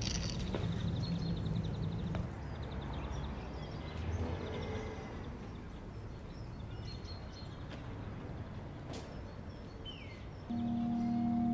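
City street ambience: a steady haze of distant traffic noise with a few short bird chirps. Near the end a steady held musical drone of several tones comes in.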